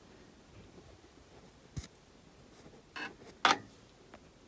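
A few brief clicks and knocks of handling, three in all, the loudest about three and a half seconds in, otherwise a quiet small room.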